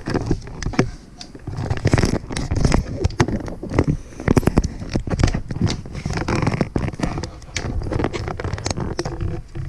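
Handling noise of a camera being picked up and repositioned: cloth rubbing and scraping over the microphone, with many irregular knocks and clicks as it is moved and set down.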